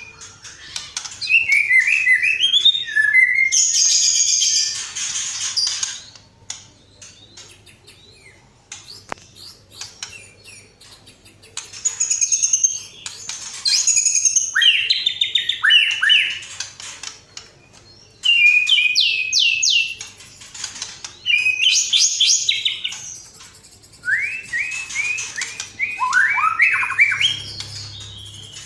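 Recorded songbird calls from a bird-song training track: phrases of rapid trilled notes and chirps, each a second or two long, with short pauses between them. A harsher, buzzier stretch comes a few seconds in.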